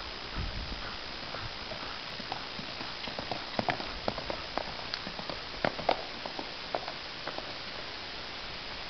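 Hoofbeats of a ridden horse cantering on a sand arena: an irregular run of thuds and clicks, loudest between about three and six seconds in as the horse passes close, over a steady hiss.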